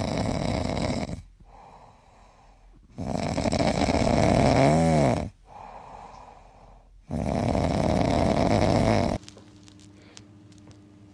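Italian greyhound snoring in its sleep: three long, loud snores a few seconds apart, the second with a whistling squeak in the middle.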